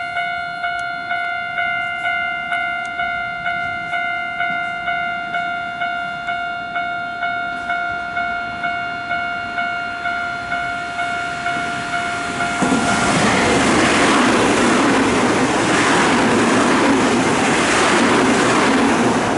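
Japanese railway level-crossing alarm ringing its steady, repeating two-tone 'kan-kan' a little over once a second. About thirteen seconds in, a Nankai electric train passes and its loud running noise takes over.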